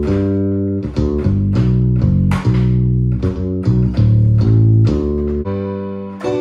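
Salsa backing track playing: a bass plays a syncopated salsa line of held low notes over a percussion groove of güiro and timbales.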